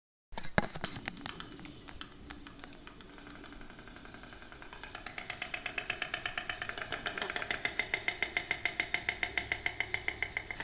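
White stork clattering its bill. Scattered clacks at first, then a rapid rattle of about six or seven clacks a second that grows louder about five seconds in.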